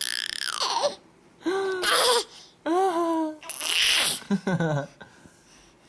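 Seven-month-old baby babbling and squealing in about five short bursts with pauses between: a falling squeal, two high coos and a breathy hissing noise.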